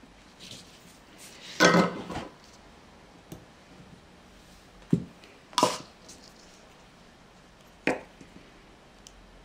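Small tools and parts knocked and set down on a workbench: a loud clatter about two seconds in, then a few single sharp clicks.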